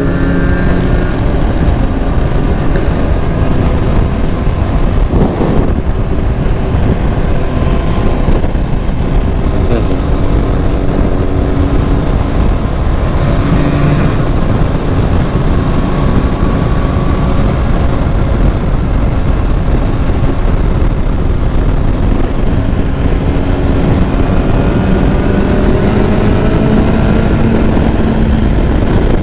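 Riding along on a motorcycle: heavy wind noise on the microphone over a steady engine drone, whose pitch rises and falls a few times with changes in speed.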